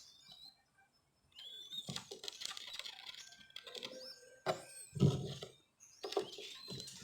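Young dove chicks squeaking to beg while being hand-fed: many thin, high, bending squeaks with rustling and clicks, starting about a second in, and one loud thump about five seconds in.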